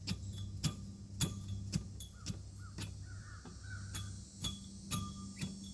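Even ticking, about two ticks a second, over a steady low hum, with a short bird call about three seconds in.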